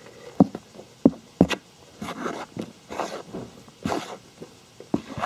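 Small trowel digging and scooping through the soil of a beetle-larva rearing case: a few sharp knocks in the first second and a half, then repeated rustling, scraping scoops.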